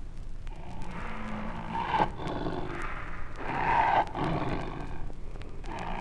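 Siberian tiger growling and snarling in rough bursts while guarding its meat at feeding time; the loudest snarl comes about four seconds in.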